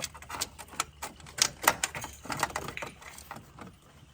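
Irregular metallic clicks and clinks of hand tools working on a stuck fastener, several a second, loudest about halfway through.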